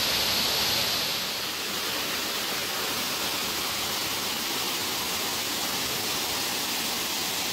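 Waterfall rushing: a steady roar of falling water that eases slightly about a second and a half in.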